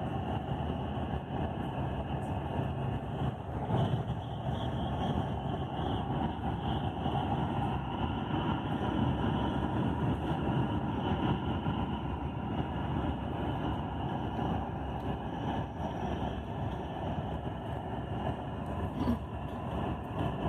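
Steady engine and road noise inside a minibus cruising along a highway.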